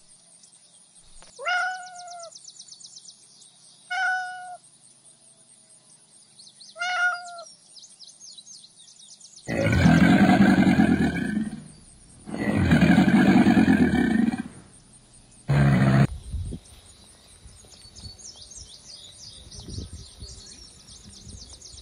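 Three short calls, each dropping in pitch, then a crocodile giving two long, loud, rough growls and a short final burst. After that there is only faint, rapid insect chirping.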